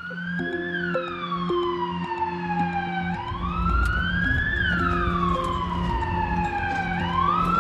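Ambulance siren wailing, its pitch sweeping up quickly and then falling slowly, the cycle repeating about every four seconds. A low rumble comes in beneath it about three seconds in.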